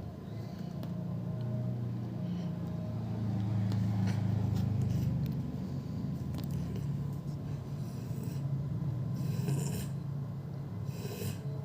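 Soft rubbing and rustling, with two short hissy rustles near the end, over a low uneven rumble.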